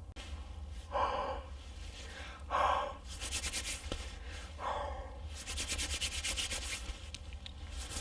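Rustling and crinkling of a nylon sleeping bag and tarp as someone shifts about, with three short breaths about one, two and a half and four and a half seconds in.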